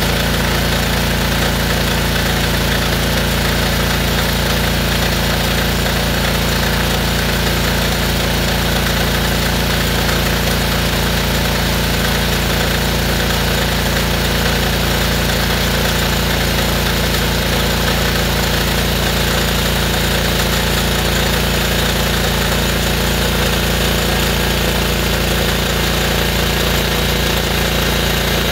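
DeWalt gas pressure washer's Honda engine running steadily, driving a hydro jetter that is clearing a kitchen drain of buildup.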